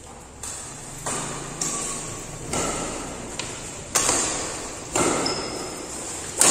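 Badminton rackets striking the shuttlecock in a doubles rally: about eight sharp hits in quick succession, each ringing on in the echo of a large hall.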